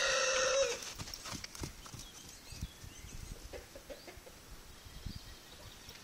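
A horse whinnying once, a short, loud, high call that ends under a second in. After it come faint soft thuds of footfalls on arena sand.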